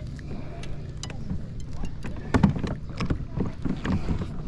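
A bass being brought to a kayak: scattered clicks and knocks from the tackle, and the fish splashing at the surface, over wind on the microphone and a low steady hum.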